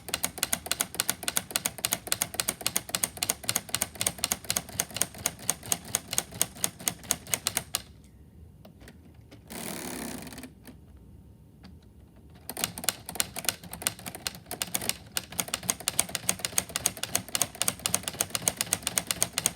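Keys of a brick-built LEGO typewriter being pressed in quick succession, its plastic key levers and Technic gear mechanism clacking several times a second. The clicking stops for a few seconds near the middle, broken by a brief rustle, then starts again.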